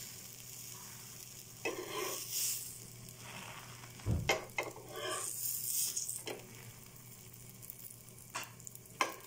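Butter sizzling on a hot tawa while buttered burger buns are flipped over with a spatula. Scrapes and handling noises come at intervals, with a thump about four seconds in as a burger is turned onto the pan.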